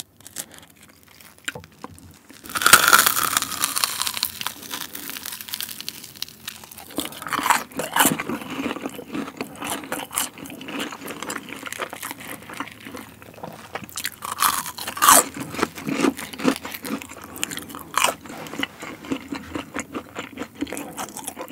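Biting into a fried cheese ball and chewing it: a loud crunch of the fried crust about two and a half seconds in, then chewing with crunchy crackles and a few louder crunches now and then.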